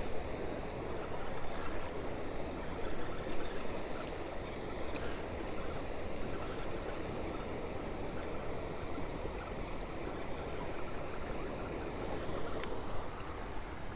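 Turbulent water churning through a dam spillway: a steady rushing noise.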